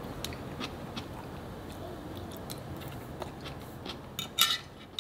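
Metal fork clicking and scraping against a cast iron skillet and pieces of chop steak, in scattered light clicks, with a louder ringing clink about four and a half seconds in.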